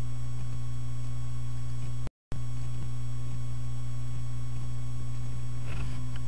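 Steady low electrical hum picked up by the recording, with fainter steady overtones above it; it cuts out completely for a moment about two seconds in.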